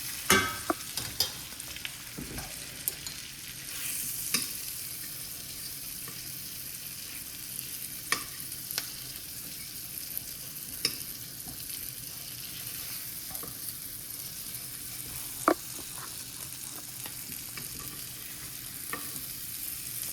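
Wagyu top sirloin steak searing in a hot pan of butter and garlic: a steady sizzle, broken by a dozen or so sharp clicks and pops scattered through it.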